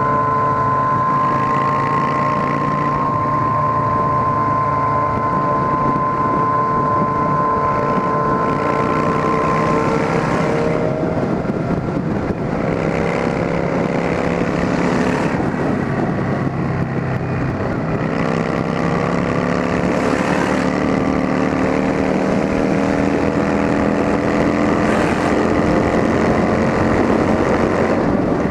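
Motorcycles with straight-through open exhausts running under way. The engine note breaks and drops about a third of the way in, then climbs slowly and steadily. Wind buffets the microphone.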